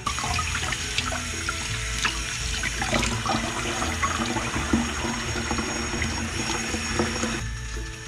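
Water running steadily from a kitchen tap, with scattered light clicks, over background music. The water sound stops shortly before the end.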